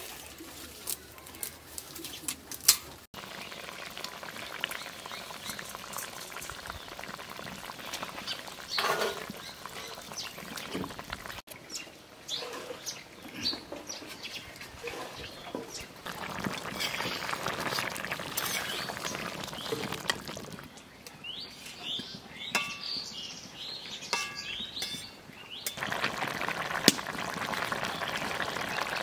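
A metal spatula clinking against a steel wok in the first few seconds, birds chirping outdoors later on, and near the end the curry bubbling and hissing in the wok.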